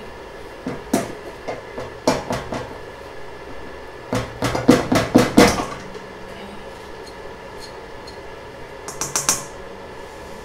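A hand tool clinking and scraping against a stainless steel bowl in short clusters of knocks: a few around a second and two seconds in, a faster, louder run of clinks from about four to five and a half seconds in, and a brief sharper burst near the end.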